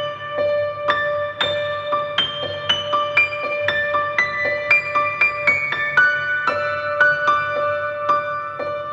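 Background piano music: single notes struck at an even, unhurried pace, each ringing and fading into the next.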